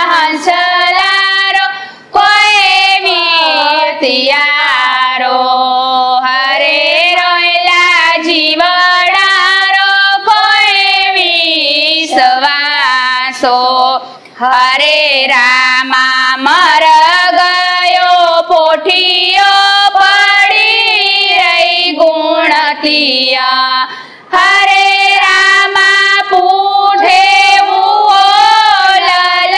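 Women's voices singing a Gujarati devotional kirtan (bhajan) together in one melody, with brief pauses between lines.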